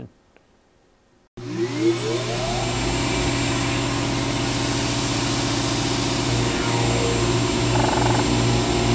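A motor-like machine whir cuts in suddenly about a second and a half in, after near silence, and then runs loud and steady with a strong hum.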